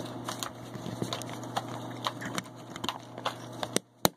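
Small clicks and taps of a die-cast Hot Wheels flatbed hauler being handled, its detachable plastic bed knocking against the metal chassis as it is fitted back on, with one sharper click about four seconds in.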